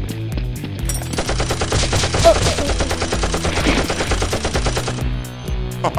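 Rapid-fire machine-gun sound effect lasting about four seconds, starting about a second in and cutting off near the end, dubbed over the firing of a Nerf blaster. Background music with a steady beat plays under it.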